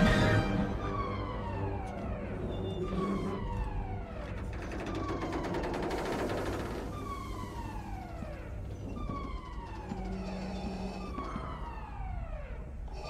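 Alarm siren sounding a falling tone over and over, about once a second.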